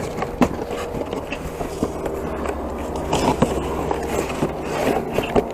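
Scattered knocks and scrapes of things being handled in a pile of trash, over a steady low hum.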